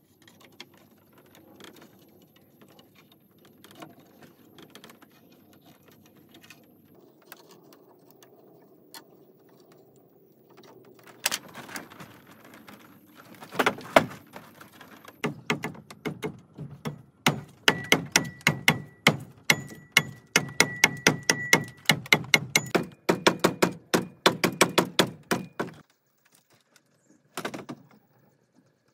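Wood being knocked with a hand-held stone: faint tapping and handling, then from about halfway in a long run of rapid, evenly spaced loud blows that stops near the end, with one more short knock after it.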